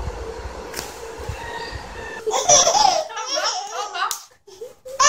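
A baby laughing in repeated bursts, starting about two seconds in after low steady background noise.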